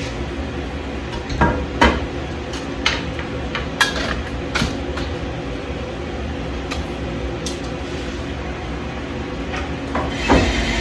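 Scattered light knocks and clicks of equipment being handled, mostly in the first half, over a steady background hum. Near the end a louder rushing noise starts.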